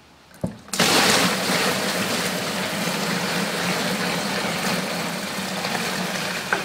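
Evapo-Rust rust remover poured in a steady stream from its pail into a plastic bin, splashing onto the bin's bottom. A short knock about half a second in comes just before the pour starts.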